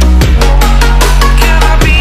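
Loud electronic music with a deep, sustained bass line that shifts pitch every second or so, over a steady drum beat.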